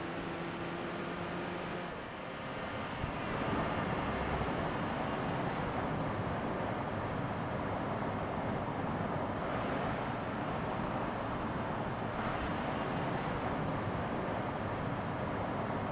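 New Volkswagen Beetle driving along the road: a steady engine hum for about the first two seconds, then a steady rush of tyre and wind noise as it cruises.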